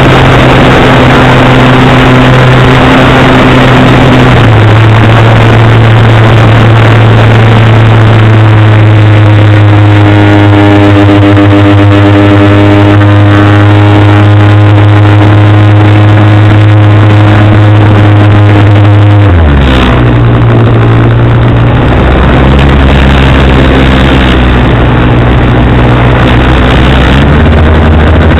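Model airplane engine heard through the plane's onboard camera, running loud and steady. About nineteen seconds in its pitch drops sharply as the throttle is pulled back, then climbs a little again.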